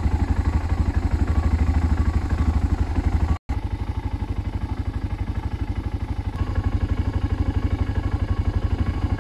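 BMW F650GS single-cylinder four-stroke engine running under way, a steady, evenly pulsing thump. There is a momentary break about three and a half seconds in.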